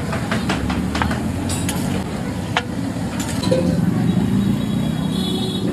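Metal clinks and scrapes of a steel plate against a large flat griddle (tawa) as marinated chicken pieces are scooped up, with a steady low rumble underneath. The clinks come thickest in the first half.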